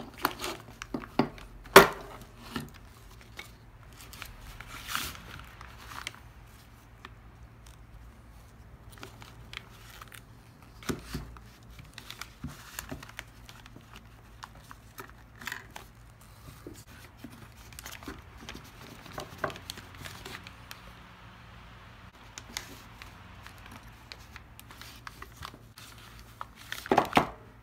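Hand-work noises from a chainsaw's plastic clutch cover and chain-brake parts being worked apart: irregular clicks of small metal parts and plastic, with rustling of crumpled paper underneath. One sharp click about two seconds in, and a burst of louder rustling near the end.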